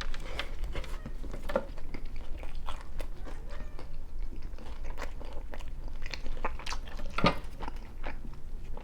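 Close-up chewing and biting of pizza, with irregular soft crunches and small mouth clicks, one sharper click near the end.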